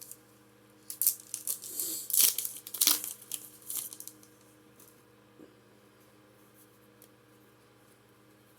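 Plastic-foil Pokémon booster pack wrapper being torn open and crinkled by hand, in a quick run of crackling rips. It stops about four seconds in.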